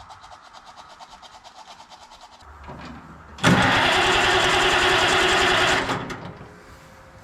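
Oliver 77 tractor's six-cylinder gasoline engine cranked by its starter for about two and a half seconds without catching, then dying away. This is a hard start: the engine will not fire, which the owner puts down to its points-and-condenser ignition losing spark or to a lack of fuel.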